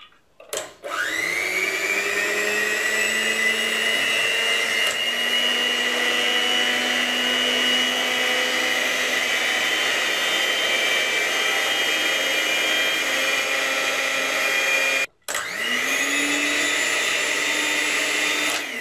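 Electric mixer running on high, its beaters whipping a runny egg, oil and spice mixture in a steel bowl: the motor spins up about a second in and holds a steady whine, cuts out for a moment near the end and spins straight back up, then winds down.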